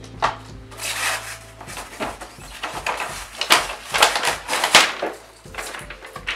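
Hands rubbing, scraping and knocking against a polystyrene foam packing insert, a quick run of noisy scrapes and bumps that is loudest around the middle.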